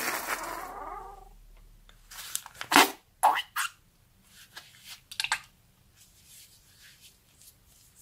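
White foam being squeezed out of the snipped fingertips of a pink rubber glove: a loud, squealing squelch of foam and air forced through the openings that fades over about a second and a half, then a run of sharp, wet squelches and pops as the glove is squeezed again, and softer crackles near the end.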